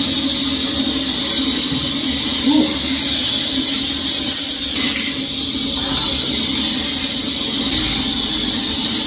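A service-station shower head running with a really harsh spray, giving a steady hiss of water.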